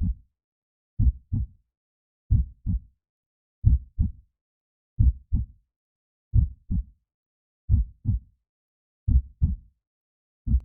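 Heartbeat sound, a slow, even lub-dub: a pair of low thumps repeating about every 1.3 seconds, eight beats in all, with silence between them.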